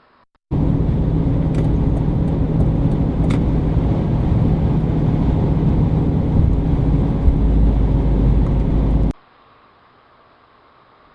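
A car's engine running steadily, with a low rumble and a steady hum and a few light clicks. It cuts in abruptly about half a second in and cuts off about nine seconds in.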